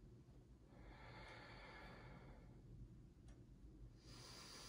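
A person taking two faint deep breaths, the first about a second in and the second, a little stronger, near the end, over a low steady room hum.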